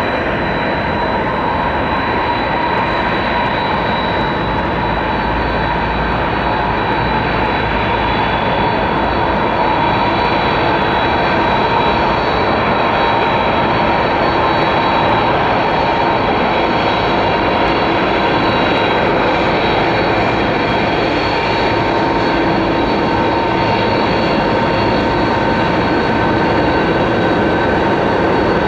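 Jet airliner engines running: a steady rush of noise carrying several high, whining tones, growing slightly louder about ten seconds in.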